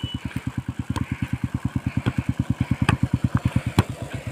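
A football kicked back and forth between players: sharp thuds of foot striking ball, about one a second, the loudest about three seconds in. Underneath, a steady low engine-like pulsing of about ten beats a second runs throughout.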